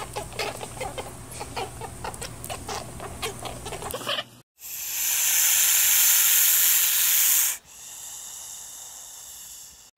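A quick run of short clicks and squeaky calls, then, about four and a half seconds in, an Asian water monitor lizard hissing loudly for about three seconds, followed by a quieter, drawn-out hiss.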